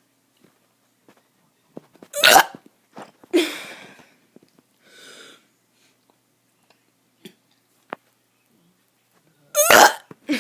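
A boy forcing out burps: a loud, short one about two seconds in, a second soon after, and another loud one near the end, with faint throat and mouth noises between.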